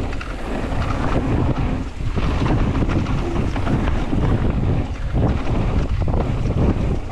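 Wind rushing over the microphone as a mountain bike rolls fast down a dirt trail, with steady tyre noise and many small rattles and knocks from the bike over the bumps.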